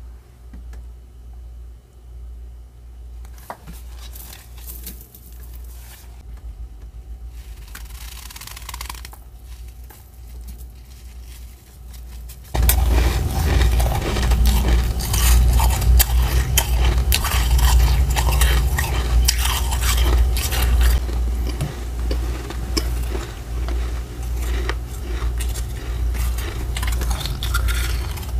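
Frost being scraped out of a freezer with a metal spoon and crunched: a few soft scrapes at first, then, about halfway through, a sudden change to much louder, dense crunching and scraping of packed frost.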